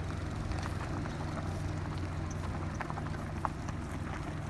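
Kia Pride hatchback's engine running at low revs as the car creeps over a rough stony road, with scattered crunches and clicks from the tyres rolling over loose rocks.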